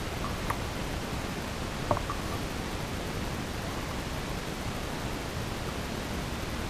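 Steady, even hiss of cave ambience by a still sump pool, with two brief drips about half a second and two seconds in.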